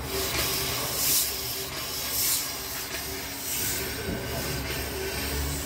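A 40-horsepower DC motor running, its carbon brushes rubbing on the spinning commutator: a steady hiss and hum with a faint steady tone, the hiss swelling every second or so.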